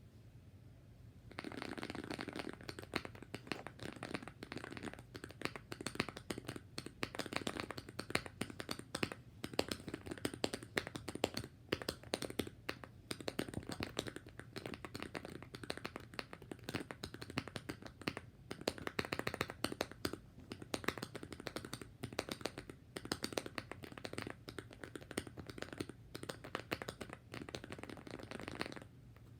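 Mechanical keyboard with lubed and filmed Glorious Panda tactile switches being typed on, a rapid run of keystrokes that starts about a second and a half in and stops shortly before the end.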